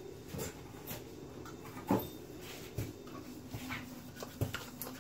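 Scattered knocks and clicks of someone rummaging through things out of view, over a steady low hum.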